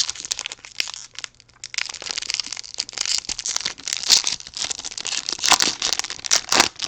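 Foil wrapper of a baseball card pack being torn open and crinkled by hand, a dense crackling with a short lull about a second in.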